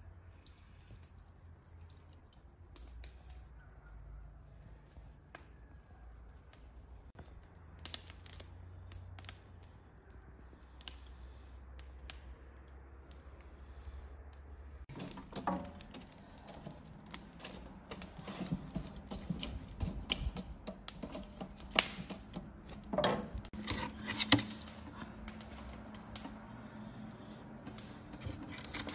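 Marinated meat being pushed onto metal skewers: small wet squelches and clicks and clinks of the steel skewers, sparse at first and busier from about halfway through. A steady low hum joins at the same point.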